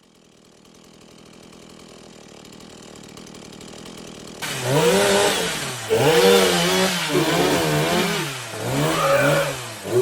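Chainsaw engine, faint at first and growing louder, then revved hard and repeatedly from about four seconds in, its pitch rising and falling with each rev.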